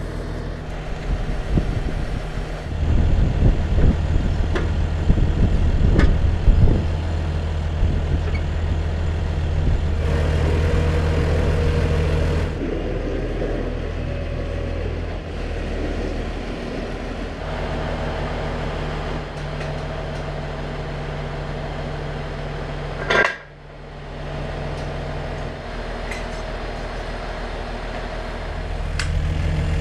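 Massey Ferguson tractor engine running steadily, with scraping and knocks as mud is cleared from the disc harrow's discs a few seconds in. A sharp knock stands out about two-thirds of the way through.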